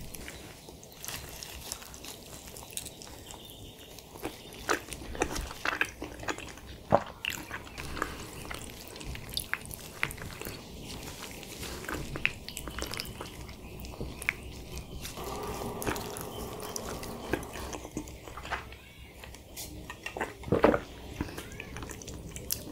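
Close-up eating sounds of a person chewing food, with scattered wet smacks and sharp mouth clicks, and soft squishing as a gloved hand picks food from a bowl.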